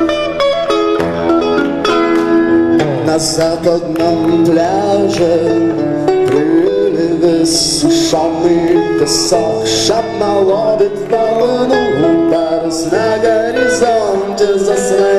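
Live band music led by an electric guitar playing a melody with bent notes, over bass and cymbal hits.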